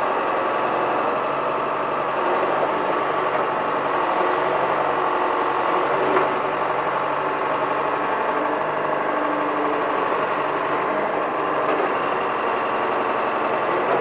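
John Deere 410 backhoe's diesel engine running steadily while the boom and bucket dig and lift soil.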